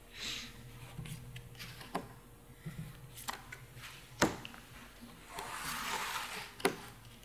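Playing cards being dealt and handled on a tabletop: a run of light taps and slaps, the sharpest about four seconds in, with a longer rustling slide of cards near the end.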